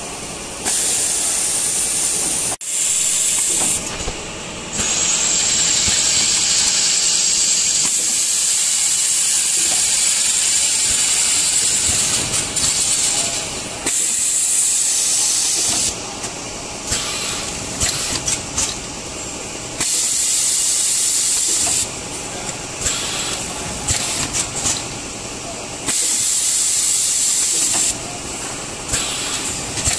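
Vertical form-fill-seal packing machine running. Loud hissing comes on and cuts off abruptly in stretches of two to eight seconds, over the machine's quieter running noise, with a sharp click about two and a half seconds in and scattered ticks near the end.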